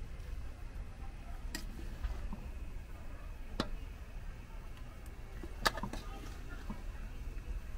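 Fried meat scraps handled in a metal pan, giving a few sharp clicks about two seconds apart over a low steady rumble.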